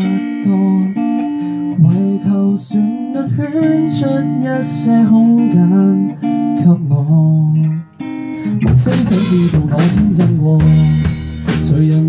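A man sings a Cantonese pop ballad over acoustic guitar and electric bass. After a brief break about two-thirds of the way through, the drum kit comes in with cymbal crashes and the band plays on together.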